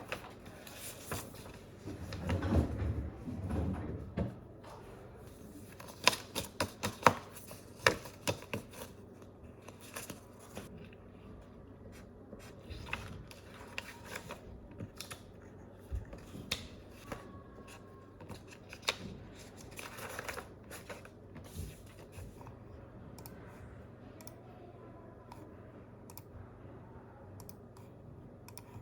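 Scattered clicks and rustling of desk work, such as keyboard typing and handling of objects, over a steady low hum of the room, with a louder rustle about two seconds in.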